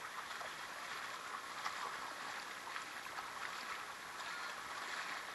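Shallow freshwater creek water splashing and rushing in a steady hiss, with small scattered trickles and ticks.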